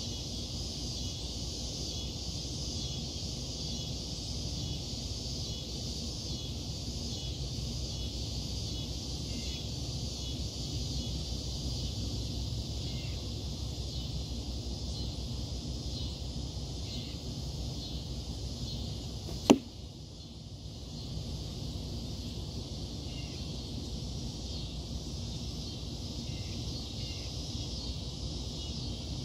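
An arrow strikes a foam block archery target once, about two-thirds of the way through, with a single sharp smack. It stands out over a steady background of low rumble and a high, even hum.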